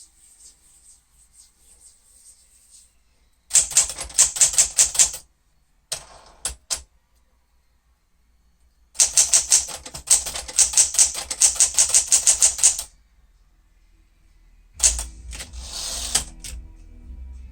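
Manual typewriter keys struck in quick bursts of typing on a 1965 Sears Citation 12, a Smith-Corona-built machine, with pauses between bursts and a few single strokes. Near the end a longer, different mechanical sound takes over.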